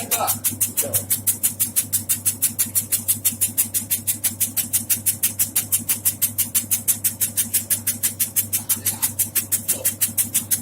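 Automatic tobacco shredding machine running, its cutting blade chopping in an even rhythm of about six strokes a second over a steady motor hum.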